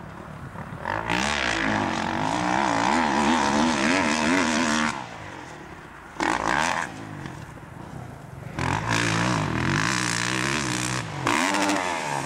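Kawasaki KX450F motocross bike's four-stroke single-cylinder engine being ridden hard, revving up and easing off in bursts, with the pitch wavering under the throttle. It is loud from about a second in to five seconds, blips briefly around six seconds, then pulls hard again near the end.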